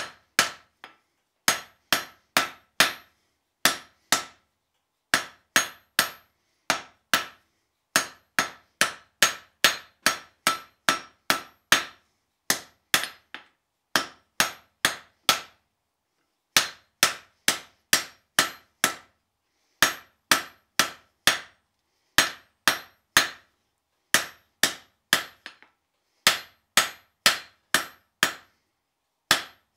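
Hand hammer striking red-hot leaf-spring steel on an anvil, forging a chisel handle: sharp blows about two a second in runs of several with short pauses between, each leaving the anvil ringing briefly.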